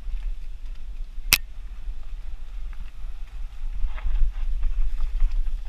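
Mountain bike riding down dirt singletrack, heard from a helmet-mounted camera: a steady low wind rumble on the microphone over tyre noise and small rattles of the bike on the dry, leaf-strewn trail, with one sharp knock a little over a second in.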